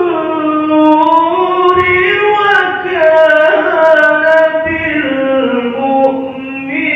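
Melodic Qur'an recitation (qiro'ah): one reciter's voice holding long, ornamented notes that slowly rise and fall, with short dips between phrases.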